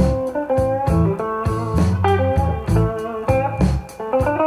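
Blues music led by guitar, with slide-guitar lines, bass and a steady drum beat, played back over loudspeakers driven by a single-ended 845/211 triode tube amplifier.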